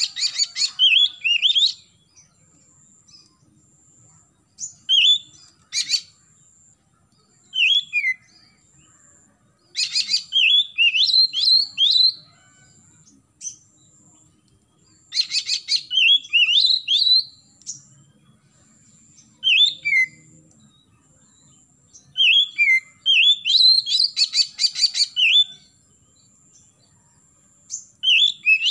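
Oriental magpie-robin singing in bursts of quick whistled, sliding notes mixed with harsh rattling notes, each phrase one to three seconds long with pauses of a few seconds between.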